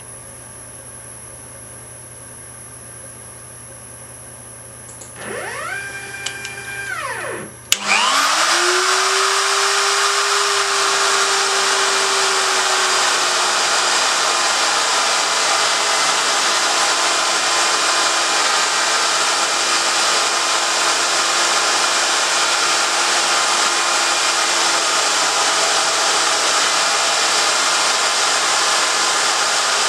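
CNC machine's motors whining briefly, rising and then falling in pitch as the gantry moves, over a low hum. About eight seconds in, the spindle, a handheld electric router, clicks on, spins up and then runs loud and steady with a high motor whine.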